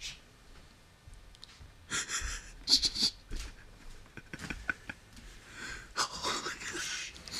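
Breathy, hissing bursts from a person close to the microphone, stifling laughter: one about two seconds in and another about six seconds in, between quiet stretches.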